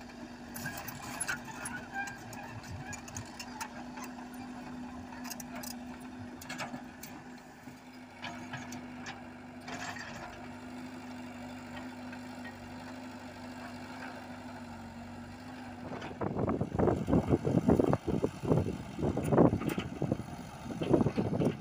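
Komatsu PC78UU mini excavator's diesel engine running with a steady drone, with scattered light clanks as it works the dirt. About sixteen seconds in, the sound turns abruptly louder and uneven, surging in irregular pulses.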